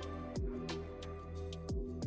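Background music with sustained chords, a low drum thump twice and light high ticks.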